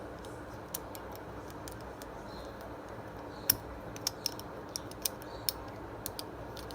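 Scattered sharp clicks of Lego plastic pieces being handled, with one louder click about three and a half seconds in and a quick run of smaller clicks after it, over a steady background hiss.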